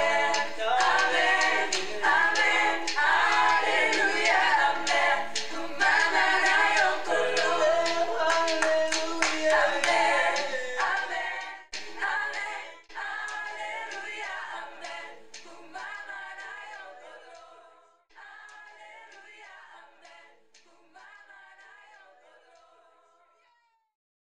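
Choir singing with hand clapping, loud for the first half. After about 11 seconds the singing thins out and fades away near the end.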